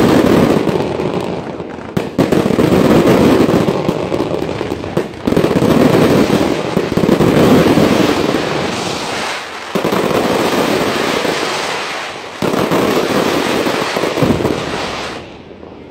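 Fireworks display going off: a loud, dense, continuous mass of popping bursts that drops away and starts again several times.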